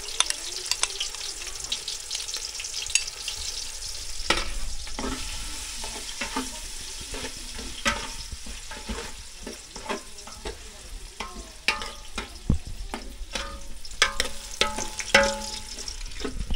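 Onion, garlic and ginger sizzling in hot oil in an aluminium pot, while a spoon stirs them and scrapes and clicks against the pot many times.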